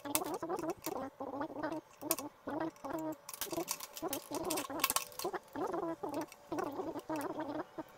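Chickens clucking over and over in short calls, mixed with small clicks and taps from handling a circuit board and test probes.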